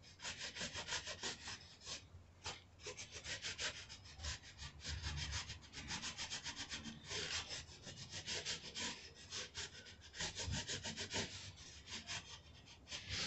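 Aluminium air-conditioning tube being scrubbed by hand with an abrasive strip wrapped around it, in quick back-and-forth rasping strokes of about four a second with short pauses, cleaning the metal back to bare aluminium before TIG welding.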